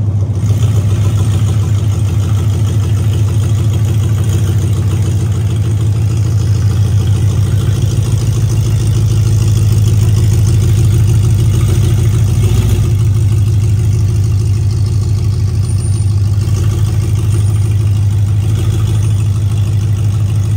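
2015 Ford F-250 Super Duty's 6.2-litre gasoline V8 idling steadily, a low even hum.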